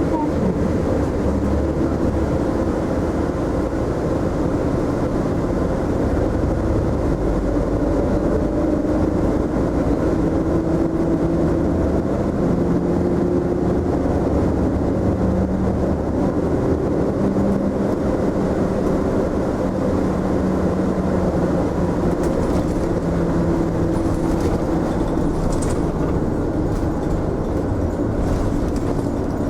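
Mitsubishi Fuso Aerostar city bus running, heard from inside the cabin: steady engine and road noise, with the engine's note stepping up and down in pitch as the bus speeds up and changes gear.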